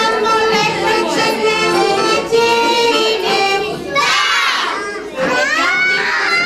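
Small children singing with accordion accompaniment, then breaking into loud shouts about four seconds in and again a second later.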